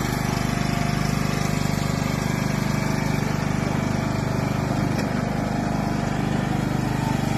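John Deere riding lawn tractor's engine running steadily as the tractor drives along, an even hum at constant level.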